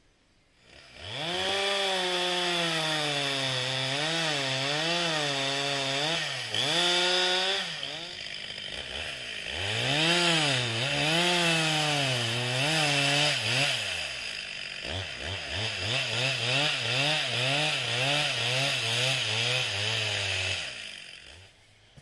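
Stihl MS 361 two-stroke chainsaw cutting into a standing tree trunk, its engine pitch wavering up and down as the chain loads and clears in the cut. It comes in about a second in, eases off briefly twice, and stops near the end.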